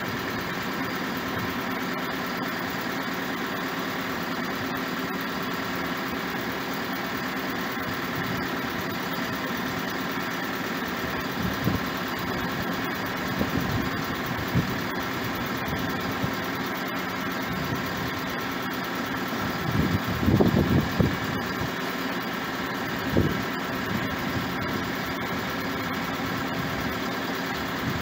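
Travel lift engine idling steadily. A few low thumps break in, the loudest cluster about two-thirds of the way through.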